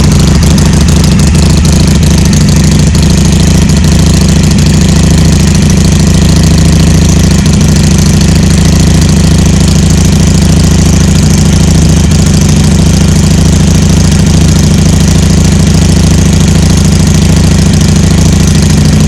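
Harley-Davidson Iron 883's air-cooled V-twin with a Jekill & Hyde valve exhaust idling steadily and loud, just after being started.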